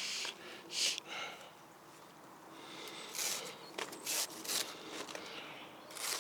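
Outer leaves being snapped and torn off a harvested cabbage head: a series of short rustling snaps, several in a row with a brief lull in the middle.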